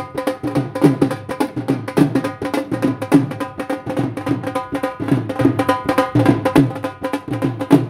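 Dhol drumming: a fast, steady rhythm of sharp high strokes over deep bass strokes that drop in pitch.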